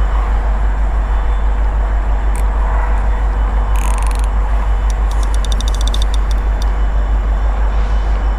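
Steady low rumble throughout. A short run of quick, evenly spaced clicks comes about five seconds in, in keeping with a fishing reel while a carp snagged in debris is played.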